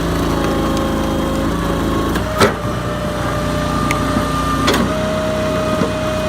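Small engine of a wood-processing machine running steadily, with two sharp knocks, one about two and a half seconds in and another near the five-second mark.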